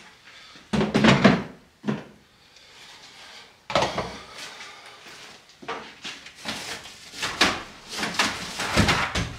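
Hard plastic Milwaukee Packout toolboxes being handled: a run of separate clacks and knocks as lids and latches are opened and shut, with the heaviest thump near the end.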